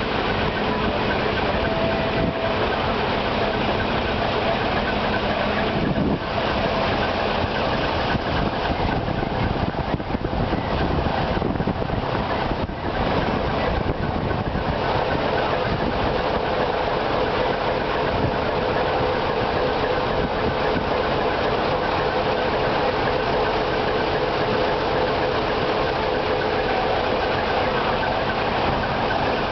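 Large diesel truck engine idling steadily, a continuous low rumble with a knocking edge.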